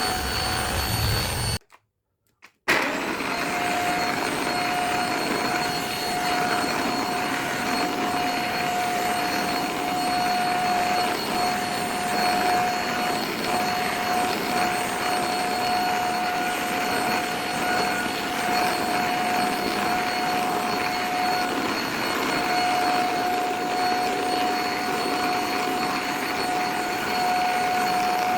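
Notale NTL-VC1 vacuum cleaner running steadily, a whooshing motor noise with a steady whine over it. The sound drops out completely for about a second near the start, then carries on unchanged.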